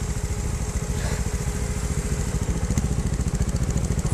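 Trials motorcycle engine idling steadily, its rapid firing pulses heard close up.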